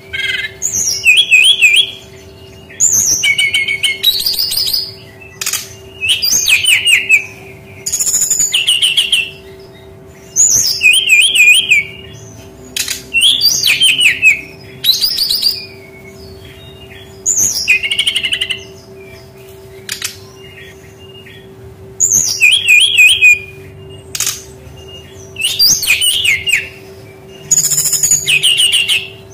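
Fulvous-chested jungle flycatcher (sikatan rimba dada coklat) singing: short phrases of quick, high warbling notes and trills, repeated about every two seconds, over a faint steady hum.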